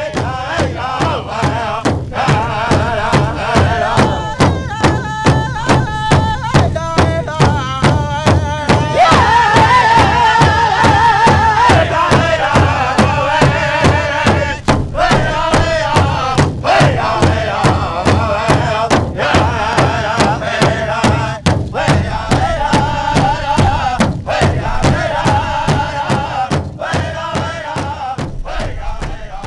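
Powwow drum group: several men singing a chant together over a steady, even beat struck on one large shared drum.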